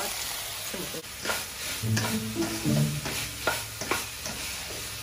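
Diced carrots tipped into a hot non-stick wok of frying ground meat, then a spatula stirring and scraping them around the pan over a steady sizzle. From about a second in come repeated short scrapes of the spatula against the wok.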